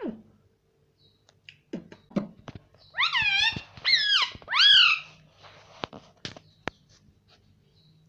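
Indian ringneck parakeet vocalizing: a couple of low falling sounds, then three loud calls in quick succession, each rising and falling in pitch. A few sharp clicks follow near the end.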